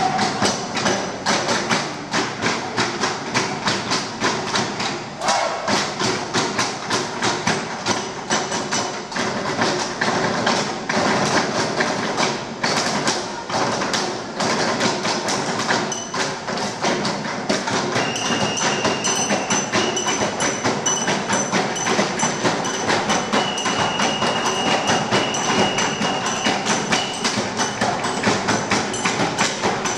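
Group percussion of cups knocked and tapped on wooden school desks, many players striking together in a fast, even rhythm.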